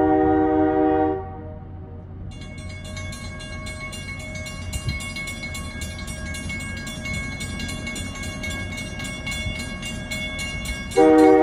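A locomotive horn sounds a chord that stops about a second in. From about two seconds, a railroad grade-crossing warning bell rings steadily over the low rumble of the approaching train. Near the end the horn blows again, louder.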